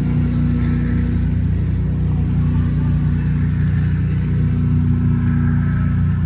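A motor engine running at a steady speed, giving a loud, unchanging low drone.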